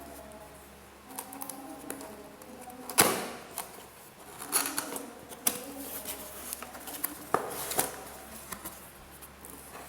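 Irregular clicks, taps and rustling from a mechanical keyboard and its packaging being handled, with one sharp knock about three seconds in.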